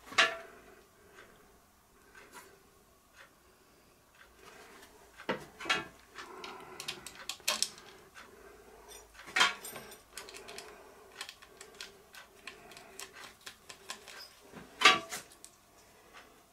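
Scattered clinks and taps of small steel bolts and hand tools being handled on a milling machine's vise, with a few sharper knocks among them, over a faint steady hum.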